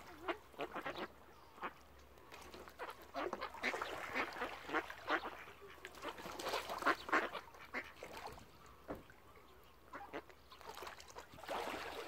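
A flock of mallard ducks quacking, with many short calls overlapping in irregular busy bursts.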